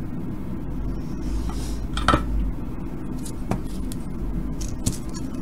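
A few light clicks and clinks of small hard parts being handled on a workbench: the LED cube kit being picked up and turned over, its circuit board and LED legs knocking, the loudest click about two seconds in. A steady low hum runs underneath.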